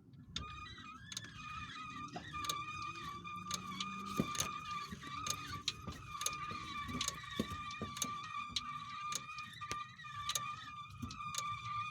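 Driveline squeal from a 1985 Chevrolet Caprice as the driveshaft is turned slowly by hand at the transmission tailshaft, with a rear wheel off the ground. It is a steady, high singing squeal that starts about half a second in, with scattered light clicks. The owner suspects the tailshaft seal or a bearing.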